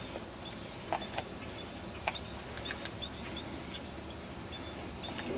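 Outdoor ambience with a steady background hiss and birds giving short, high chirps over and over. Three sharp clicks come in the first half.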